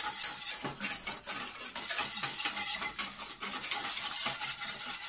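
Wire balloon whisk beating flour into milk for a béchamel in a stainless-steel saucepan, its wires scraping and ticking rapidly and continuously against the sides and bottom of the pan.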